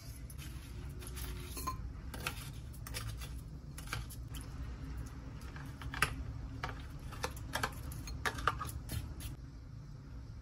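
Clinks and taps of kitchenware as frozen slushy broth and ice chunks are tipped from a container into a stoneware bowl of noodles, the sharpest knocks over the second half, with a steady low hum underneath.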